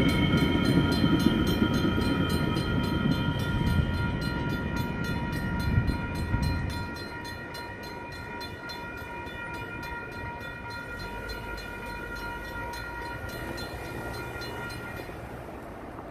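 Railroad crossing bells (WCH electronic bells and a Safetran mechanical bell) ringing with rapid, even strikes, over the rumble of a departing Metra train that fades away about seven seconds in. The bells stop shortly before the end as the crossing gates finish rising.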